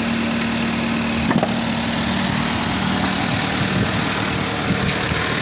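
Bulldozer diesel engine idling steadily, with a single metallic knock about a second in.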